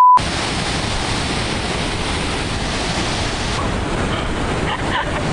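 A short, loud, single-pitched electronic beep at the very start, then steady ocean surf and wind rushing over the microphone.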